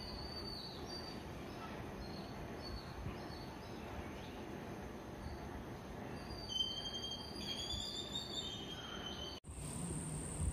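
Small songbirds chirping over a faint outdoor hiss, with a run of clear rising whistled notes about two-thirds of the way through. Near the end the sound cuts off abruptly and gives way to a steady high-pitched whine and a low wind rumble.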